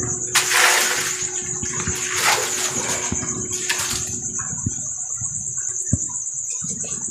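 Water splashing and pouring in three short rushes in the first four seconds, followed by small knocks. A steady high cricket trill runs underneath.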